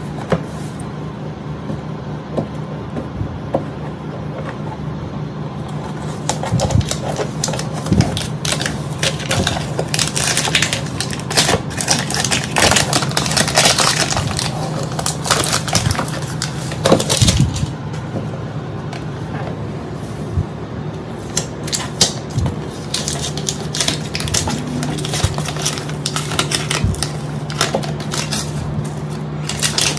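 Protective paper film being peeled off an acrylic panel of a makeup beauty case: crinkling and crackling clicks, fitful and irregular, getting busy about six seconds in. A steady low hum sits underneath.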